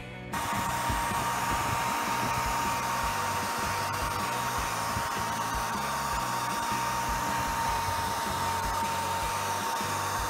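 A small electric motor running steadily, with a hiss and a constant high whine, starting abruptly a moment in.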